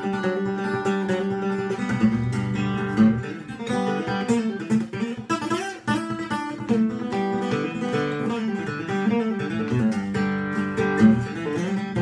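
Acoustic guitar played solo: a run of picked and strummed notes over a low note that keeps sounding underneath.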